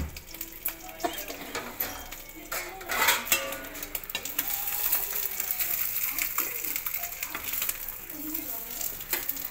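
Boiled eggs sizzling in hot oil in a kadhai while a metal spatula scrapes and knocks against the pan, turning the eggs and lifting them out.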